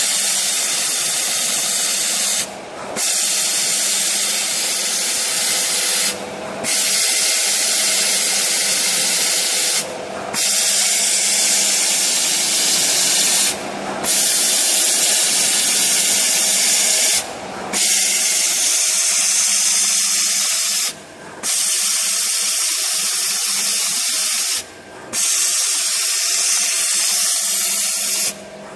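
Single-shaft adhesive tape roll cutting machine: its circular blade slicing through a spinning jumbo tape roll with a steady high hiss over a motor hum. The hiss drops out briefly about every three and a half seconds as one cut ends and the blade steps to the next.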